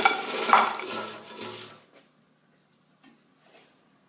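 French fries sliding and tumbling out of a tilted air fryer basket onto a plate, a rattling clatter of fries against basket and plate that stops about two seconds in.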